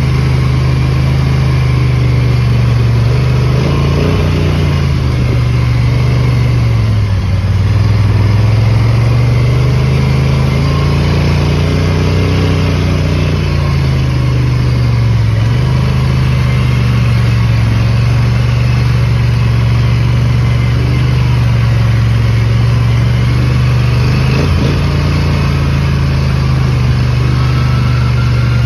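ATV engine running steadily at trail-riding speed, its pitch dipping and coming back up a few times as the throttle is eased and opened again.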